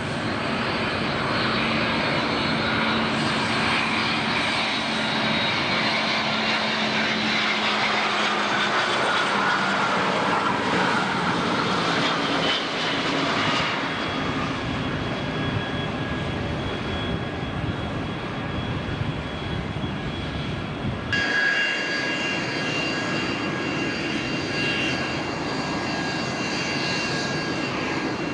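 Jet airliner engines in three shots. A twin-engine widebody passes on landing approach, its engine whine falling in pitch. A cargo jet is heard on the runway from about 14 s, and from about 21 s an early Boeing 737 taxis with a steady high-pitched engine whine.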